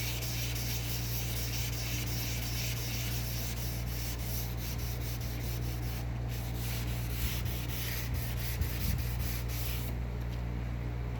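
Sandpaper rubbing on a car's painted body panel by hand, in quick repeated strokes. The strokes stop about ten seconds in.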